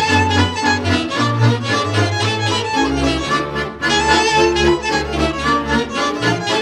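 Romanian folk dance music from Transylvania, played with a brisk, regular beat over a bass line that steps between notes.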